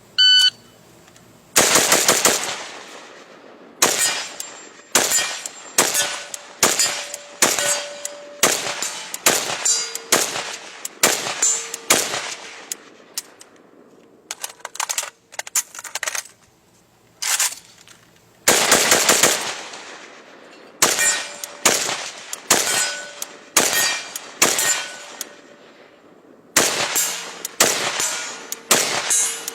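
A shot-timer beep, then an AK-47 (7.62×39 mm) fired semi-automatically in a rapid string of about thirty shots, in quick clusters, with a pause of about four seconds near the middle for the magazine change. A ring lingers after many of the shots.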